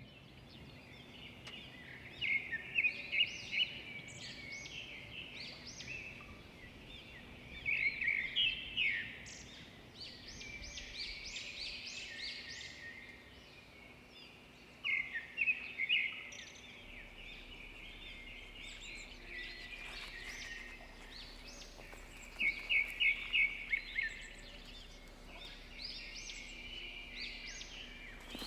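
Small birds chirping and twittering in bouts of quick, high calls that come and go every few seconds.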